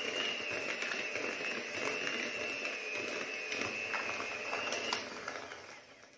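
Electric hand mixer running steadily with a high whine, its beaters churning thick butter-cake batter in a plastic bowl, with a few light clicks. It is switched off about five seconds in and winds down.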